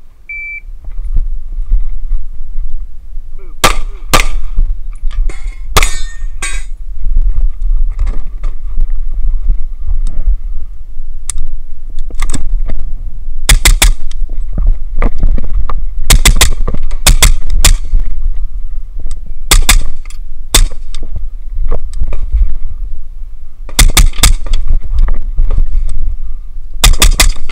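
A shot timer beeps once, then a suppressed 10.3-inch Colt 5.56 carbine fires in quick pairs and short strings, with steel targets clanging as they are hit. A steady low rumble runs underneath.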